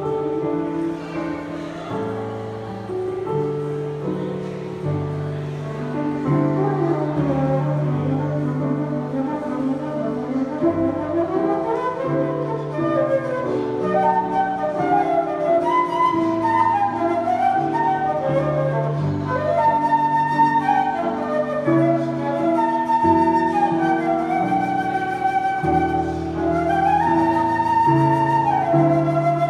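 Concert flute playing a flowing melody, with quick runs and swoops, over piano-sound chords from an electric keyboard, both heard through a small PA.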